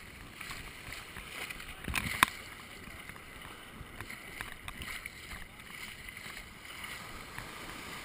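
Shallow ocean surf washing and sloshing around a camera held at the waterline, with two sharp knocks close together about two seconds in.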